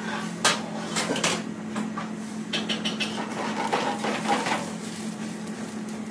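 Scattered clinks and knocks of pans and kitchen utensils over a steady low hum.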